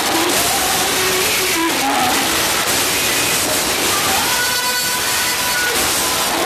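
Loud live gospel-style performance picked up by an overloaded phone microphone: a singing voice and band almost buried under a dense, hissing wash of amplified sound and crowd noise.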